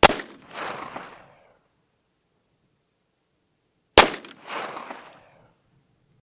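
Two shots from a Ruger Mk II .22 LR pistol firing CCI 32 gr Stinger ammunition, about four seconds apart. Each sharp crack is followed about half a second later by an echo off the hillside.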